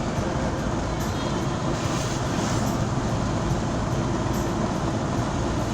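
Steady rumble of a road vehicle on the move: engine and tyre noise, strongest in the low end.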